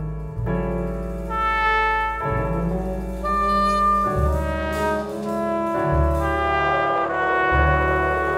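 Jazz band music: a horn section of trumpet, trombone and saxophone plays held chords that change about once a second, over long low notes from tuba and upright bass, with a few drum-kit hits about halfway through.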